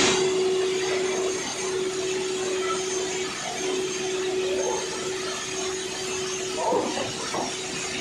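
A steady machine hum with a held whine that breaks off and resumes every second or two. About seven seconds in, plastic roof-tile sheets rattle and clatter briefly as they are handled and stacked.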